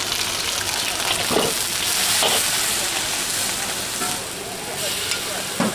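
Mee goreng mamak (yellow noodles) stir-frying over very high heat: a dense, steady sizzle, with a few sharp knocks as the noodles are tossed.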